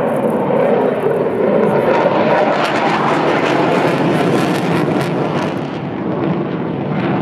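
F-16 fighter jet's engine noise as it flies past, a loud, steady rushing roar that eases slightly about six seconds in and swells again near the end.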